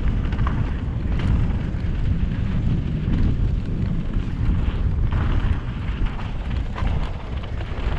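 Wind buffeting the camera microphone as a mountain bike rolls fast down a dirt trail, with the rumble of tyres on the trail surface and a few light knocks and rattles from the bike.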